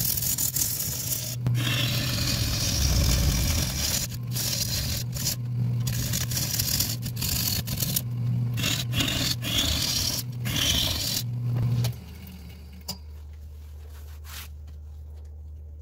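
Turning tool cutting into a spinning acacia bowl blank on a wood lathe: a loud, rough scraping shear, broken by short gaps as the tool comes off the wood, over the lathe's steady hum. The cutting stops about twelve seconds in, leaving only a quieter low hum.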